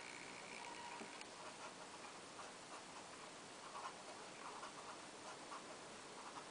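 Felt-tip marker writing on paper: faint, irregular scratchy strokes as words are written out.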